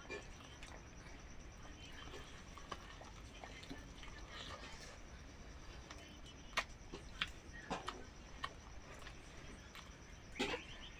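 Faint eating noises: soft chewing and mouth sounds with scattered small clicks, a few of them louder in the second half.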